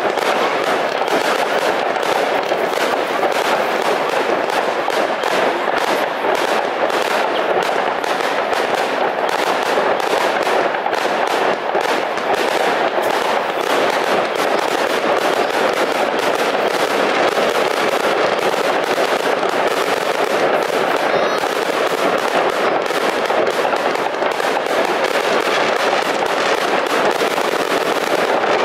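Fireworks display: aerial shells bursting in a dense, unbroken barrage of rapid bangs and crackling.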